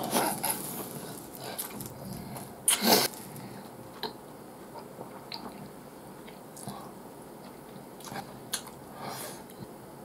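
Close-up eating sounds of a person eating ramen noodles with chopsticks: bites and chewing, with a louder noisy mouth sound about three seconds in and scattered small wet clicks after.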